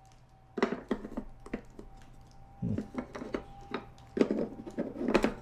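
Hard plastic clicking and knocking as the drip tray and cup support of a Nespresso Vertuo Plus coffee machine are fitted and adjusted on the machine's front. The clicks are scattered and irregular, with a louder cluster near the end.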